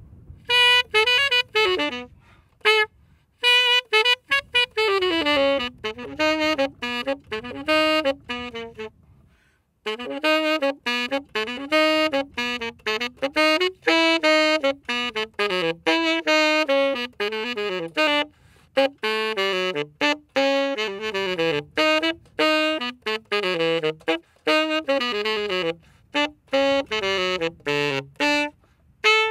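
Solo saxophone playing a slow, melodic line in phrases of flowing and descending runs, with a short pause about ten seconds in.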